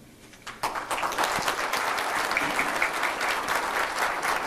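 Audience applauding, starting suddenly about half a second in and going on as a dense, steady clapping.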